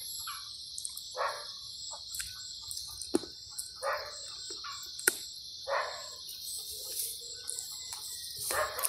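Insects in the grass keep up a steady high-pitched chorus, with several short rustles and sharp clicks close to the microphone.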